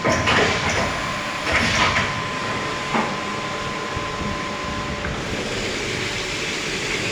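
CNC vertical machining centre running: a steady mechanical noise with a steady whine that stops about five seconds in, and a few sharp clatters in the first three seconds.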